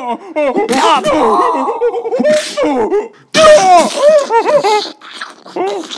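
A man's voice doing a character laugh: several bursts of quick ha-ha syllables.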